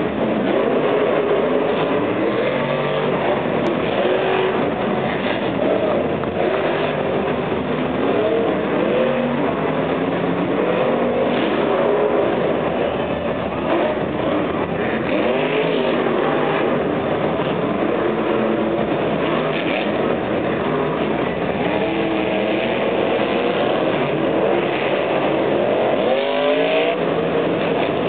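Several monster truck engines running and revving as the trucks drive slowly around a dirt arena, their pitch rising and falling again and again over a steady roar.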